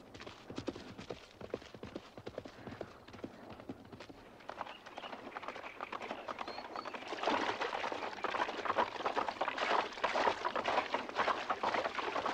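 Hoofbeats of horses galloping. About seven seconds in it turns to louder splashing as the horses gallop through shallow water.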